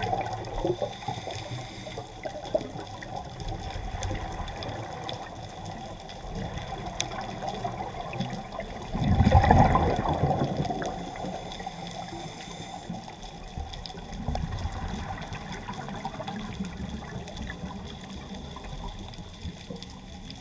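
Underwater ambience picked up by a submerged camera: a steady, muffled rush of water, with a louder surge about nine seconds in that lasts a second or so before fading back.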